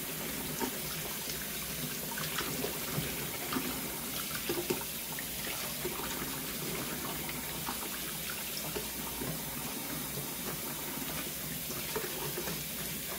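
Kitchen faucet running steadily into a bowl of water in a stainless steel sink, with small splashes and ticks as crappie fillets are rinsed and rubbed clean by hand under the stream.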